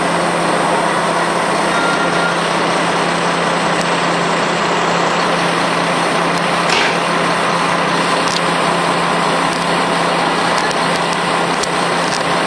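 Diesel railcar of the Hayato no Kaze train idling at the platform: a loud, steady engine hum with a constant low tone.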